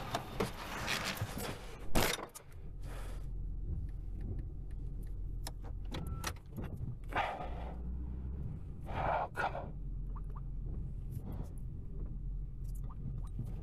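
A pickup truck's cab door shutting with a sharp thud about two seconds in, followed by the truck's engine idling as a steady low hum heard from inside the closed cab, with a few short rustles of handling.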